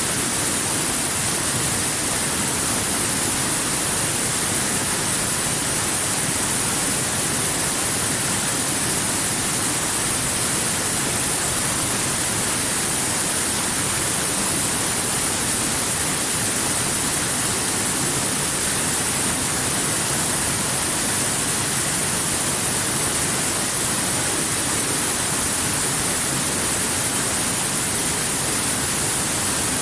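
Waterfall: a steady, unbroken rush of falling water with a strong high hiss.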